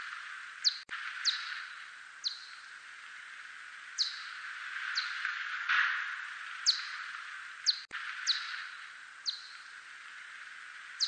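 Echolocation calls of a continental whiskered bat (대륙쇠큰수염박쥐, a Myotis species), lowered into hearing range: about ten short, sharply falling chirps at roughly one a second, over a steady hiss that swells and fades.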